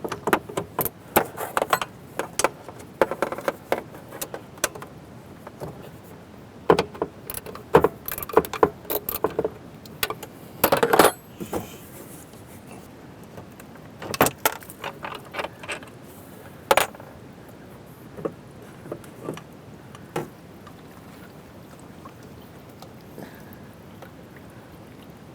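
Hand-handling of the RV holding-tank drain valve hardware: irregular clinks, clicks and knocks of bolts and valve parts being moved. They come thick in the first half, thin out, and die away near the end.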